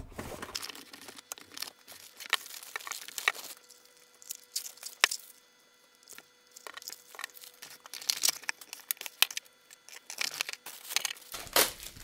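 Packaging being unpacked by hand: cardboard box flaps opened, plastic wrapping crinkling and rustling, with irregular taps and knocks as the docking station and its accessories are set on a wooden table. It goes briefly quiet about halfway through.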